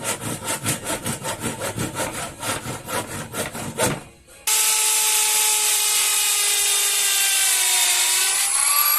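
Handsaw cutting through a wooden board with quick, even strokes, about four or five a second. About four and a half seconds in it gives way abruptly to a power tool running with a steady high whine, whose pitch sags near the end as if under load.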